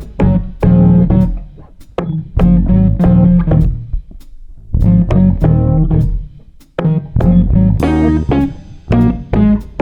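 Instrumental music: plucked guitar and bass guitar playing a repeating pattern of notes, with brief breaks about four and six and a half seconds in.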